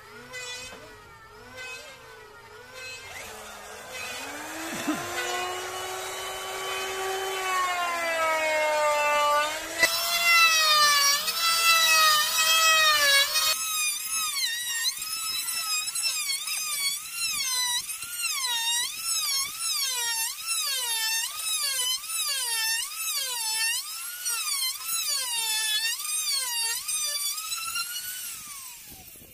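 Handheld electric wood router cutting a door tenon joint along a jig. Its motor whine dips and recovers in pitch about once a second as the bit bites into the wood and eases off. It grows louder over the first several seconds and fades near the end.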